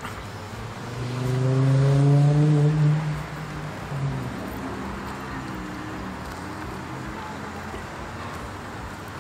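A car driving past, its engine note rising slightly, loudest about two to three seconds in before fading back into a steady background of traffic noise.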